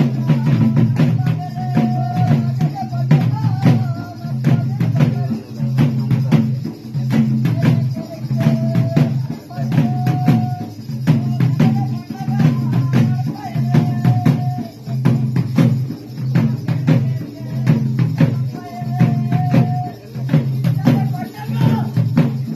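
Ritual drumming with cymbals for a Bhoota Kola / Theyyam ceremony: drums beating a steady cycle that swells about once a second, with sharp strokes throughout, and a wavering, held melody line coming in and out above it.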